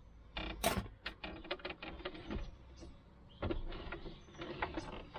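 Plastic dashboard and glove-box trim being handled and worked loose: a run of clicks, knocks and rattles, with a quick series of ticks in the middle.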